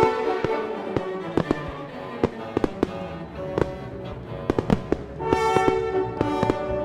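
Fireworks banging and popping at irregular intervals over music with bowed strings.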